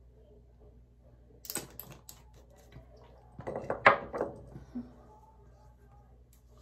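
A few light clicks from a glass dropper bottle of face oil being handled and closed, then a short clatter of knocks as things are put down and moved on the counter, loudest just before four seconds in.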